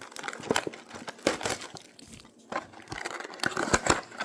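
Trading card box packaging being opened and handled: irregular crinkling, crackling and tearing of wrapper and cardboard as the foil packs are reached.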